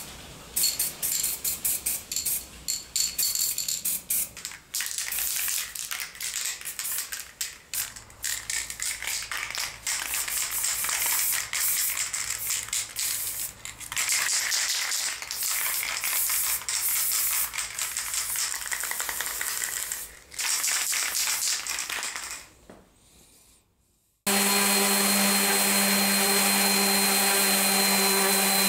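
Aerosol spray-paint can hissing in repeated short bursts and a few longer sprays as metal coat hooks are painted. About 24 seconds in it cuts to an electric random orbital sander running steadily on wood.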